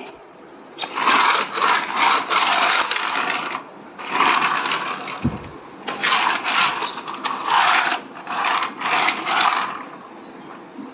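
Repeated rough scraping and rubbing in bursts of about a second, as a dog works at a plastic toy fire truck on a tiled floor. There is a single soft thump about halfway through.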